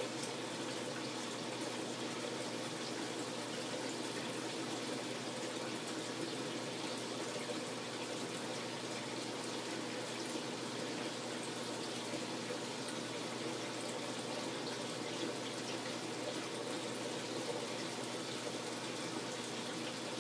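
Steady running water from a saltwater aquarium's circulation system, an even rushing and trickling with no breaks.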